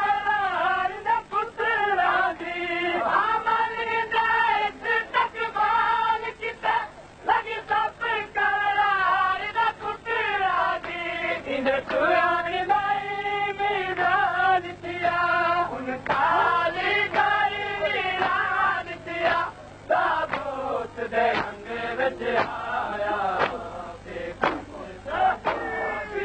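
Male voices reciting a noha, a Shia lamentation elegy, in a slow melodic chant. Sharp, regular strokes join the singing near the end.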